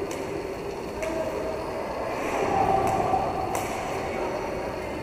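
Roller hockey in play: a steady rumble of skate wheels rolling on the rink floor, with a few sharp clicks of sticks striking the ball.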